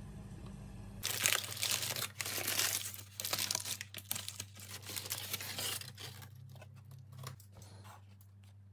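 Baking parchment crinkling and rustling loudly as a baked loaf is lifted out of its paper-lined pan, fading about two-thirds of the way through into quieter, scattered handling sounds.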